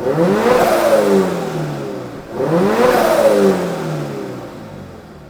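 Turbocharged Subaru BRZ's 2.4-litre flat-four engine revved twice in quick blips. The pitch climbs and then falls back each time, and the sound fades toward idle near the end.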